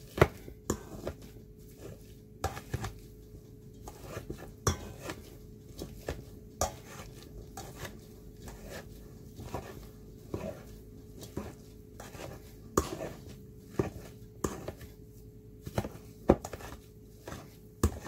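Potato masher working boiled potatoes in a stainless steel bowl: irregular knocks and clinks as the masher strikes the bowl's bottom and sides, roughly one or two a second, with soft squelches of potato between them.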